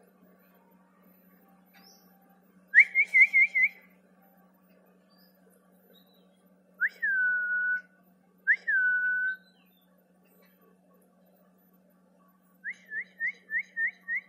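A person whistling to call a bird: a quick wavering run of four notes, then two whistles that rise and hold steady for about a second each, then a rapid run of six short rising notes near the end.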